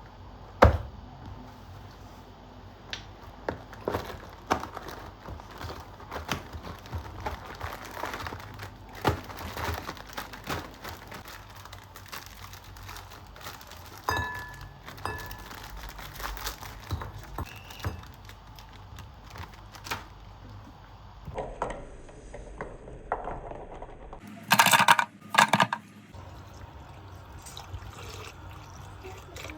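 Kitchen handling sounds while making a milkshake: scattered light clicks and knocks of utensils, packaging and containers being set down, with a louder rustling burst a few seconds before the end.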